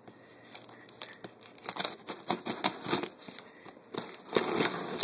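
A knife slitting layers of packing tape and plastic wrap on a cardboard box: irregular scraping, crinkling and tearing strokes that grow louder and busier after about a second and a half.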